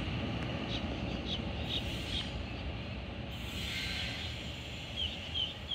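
Qube QBX-class diesel locomotive running light, a steady low rumble fading slowly as it moves away. A few short high chirps sound over it.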